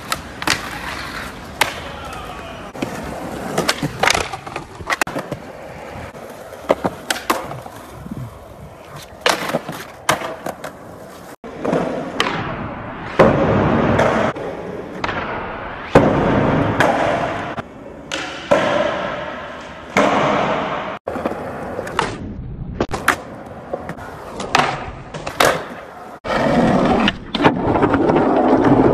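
Skateboard wheels rolling on concrete and wooden boards, broken again and again by sharp clacks of the board popping and landing on tricks. The sound breaks off abruptly a few times where one skate clip cuts to the next.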